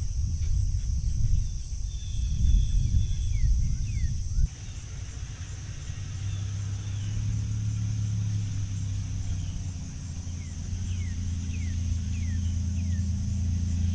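Outdoor ambience: a steady shrill of crickets with a few short falling chirps, over a loud low rumble, uneven like wind on the microphone for the first few seconds and, after an abrupt change about four seconds in, a steady low hum.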